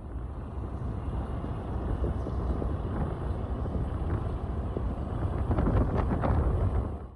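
Wind buffeting the microphone aboard a car ferry, a steady low rushing rumble with a few crackles about six seconds in, cutting off abruptly near the end.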